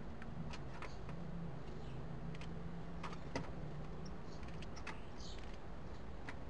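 Outdoor garden ambience through a trail camera microphone: a steady low hum and hiss, with scattered small clicks and taps and a few faint high chirps, the clearest about five seconds in.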